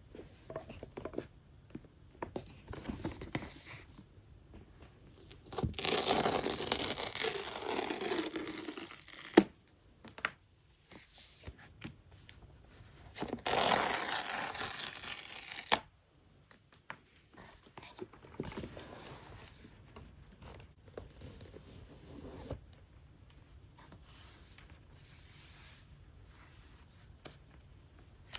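Packaging being torn open, twice, each tear lasting a few seconds, with lighter rustling and handling of the box in between: the paper tear-strip wrap being pulled off an Apple iPad Pro box.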